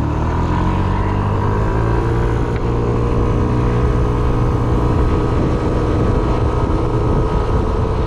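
Yamaha Smax 155 scooter's single-cylinder engine accelerating away from a stop, its pitch rising over the first two to three seconds and then holding steady as it reaches highway speed.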